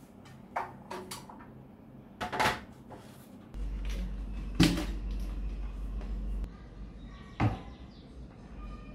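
A few clacks and knocks of an aluminium ladder being handled against a wall. Then the plastic lid of a paint bucket is pried off, with a loud sharp snap about halfway through and another knock near the end.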